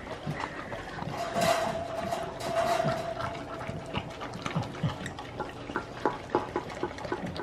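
A dog licking and lapping at its food, a run of wet, irregular clicking laps. A thin steady tone sounds for a couple of seconds near the start.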